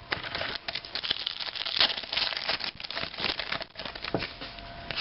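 Cardboard trading cards handled and flipped through by hand, a quick irregular run of small slaps, ticks and rustles.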